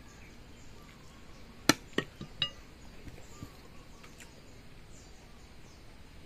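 A quick run of four sharp clinks and knocks on tableware, a little under two seconds in, as food is handled over a plate; the first is the loudest and the last rings briefly.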